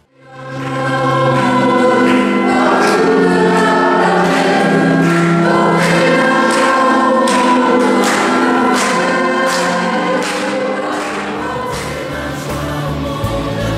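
Choir singing a hymn over sustained instrumental chords with a regular beat, coming in right after a brief drop to silence at the very start.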